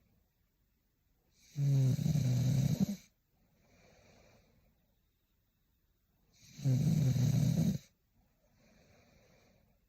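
A young woman snoring in her sleep: two loud, low buzzing snores about five seconds apart, each lasting a second and a half, with softer breaths between them.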